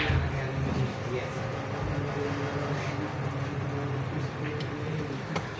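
Low murmur of men's voices talking in the snooker hall, with a few faint clicks.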